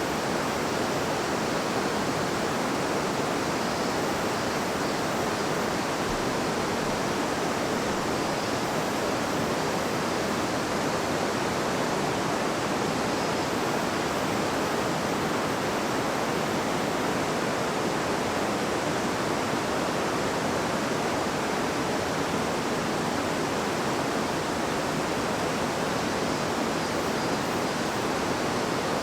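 River water flowing and babbling over rocks in an even, steady rush.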